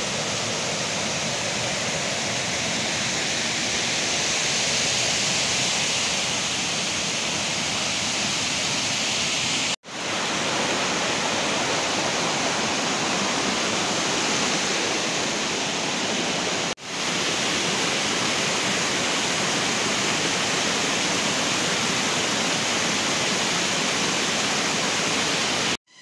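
Fast-flowing muddy stream rushing over rocks and a log: a steady, dense rush of water that cuts out for a moment twice, about ten and seventeen seconds in.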